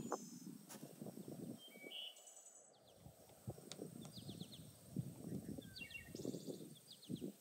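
Small birds chirping in short, rapid trills, several times, over low, irregular rustling and soft knocks.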